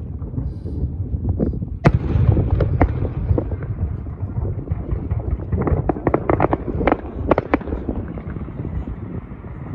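Aerial firework shells bursting: a sharp bang about two seconds in, then a rapid cluster of cracks and pops a little past the middle, over a steady low rumble.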